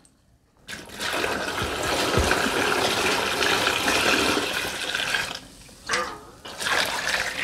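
Seasoned dongchimi brine poured in a steady stream from a large stainless steel bowl into a plastic container packed with whole radishes and vegetables, splashing over them. The pour starts just under a second in, runs evenly for about four and a half seconds, then tapers into a few last splashes.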